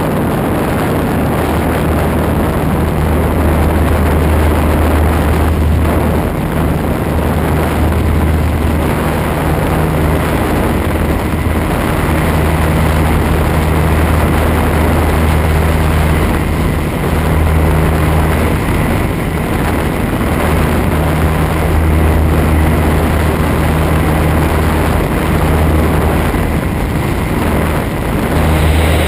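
Mudry CAP 10's four-cylinder Lycoming piston engine and propeller droning steadily in flight, heard on board with airflow rush. The low hum dips slightly a few times.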